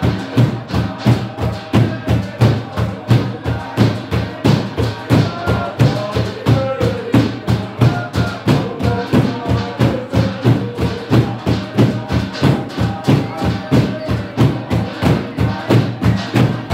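Group singing with a steady percussion beat struck by hand on a mat, about two hits a second.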